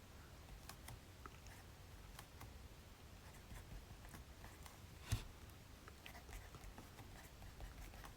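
Writing on paper, faint: scattered small scratches and taps, with one sharper knock about five seconds in.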